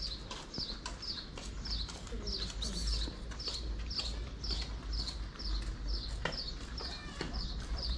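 A small bird chirping over and over, about two short, falling, high chirps a second, over a low steady rumble.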